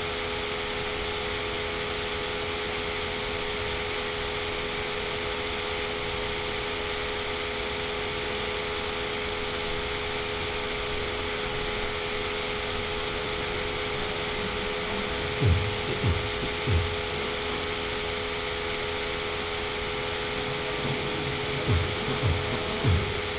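Computer cooling fan running steadily, a constant hiss with a faint hum. There are a few soft low thumps, three about two-thirds of the way in and four more near the end.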